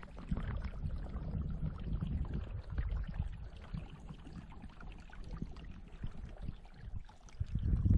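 Small open stream running steadily through a gap in the river ice, with a low rumble underneath that comes and goes.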